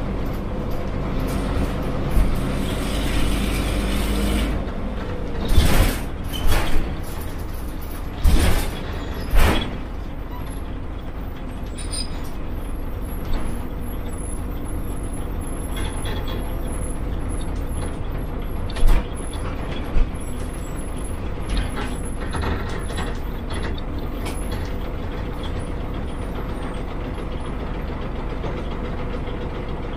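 Interior sound of a Yangzijiang WG6100NQC4 bus with its front-mounted NQ160N4 engine running, easing off about four seconds in. Several short, sharp air-brake hisses come in quick succession between about five and ten seconds in, then the engine runs on steadily.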